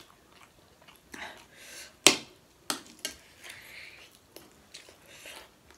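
Eating sounds: metal forks clinking against plates of noodles, with chewing between the clinks. One sharp clink about two seconds in is the loudest, followed by a few lighter ones.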